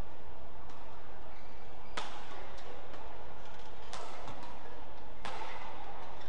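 Badminton rackets striking the shuttlecock in a rally: three sharp smacks, the first about two seconds in and the others about a second and a half to two seconds apart, each with a short ringing tail. Fainter taps fall between them, over a steady hall murmur.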